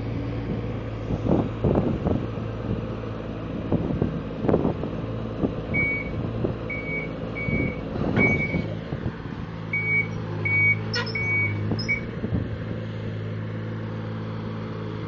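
Excavator engine running steadily, with several knocks in the first half and, from about six seconds in, a run of short high beeps about every 0.7 seconds from its travel alarm.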